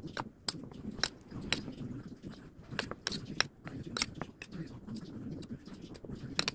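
Metal spoon clinking and scraping against a ceramic bowl while mixing sticky seasoned rice. The sharp clicks come irregularly, two or three a second.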